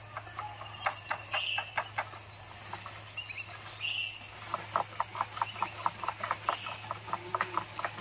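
Bamboo ant-egg harvesting pole being jiggled against a weaver-ant nest in the treetop: runs of sharp knocks and clicks, about five a second, over a steady high insect drone. A bird gives a short call every couple of seconds.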